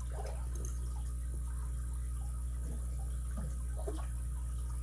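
Steady low background hum, with a few faint light clicks and scrapes of a small padlock and its key being handled.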